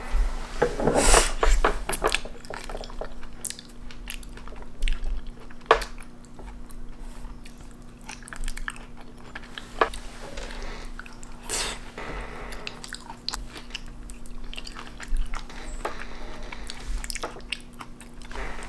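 Irregular crunchy chewing and biting, short crackly strokes scattered throughout, over a faint steady hum.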